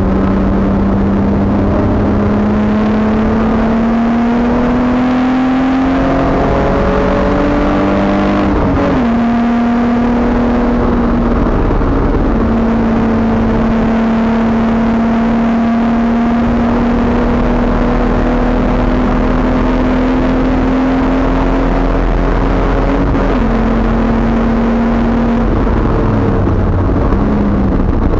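Race car's engine heard from inside the stripped, caged cabin on track. It climbs in pitch over the first several seconds and drops sharply about nine seconds in, as at a gear change. The note then holds nearly steady for a long stretch and steps down near the end as the car comes off the power.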